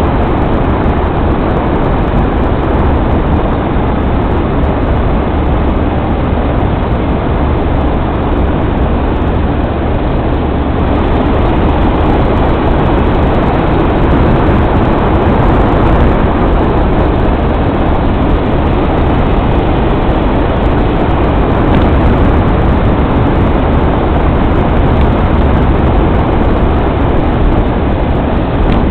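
Steady road and engine noise of a vehicle on the move, an even, unbroken rumble with no distinct events.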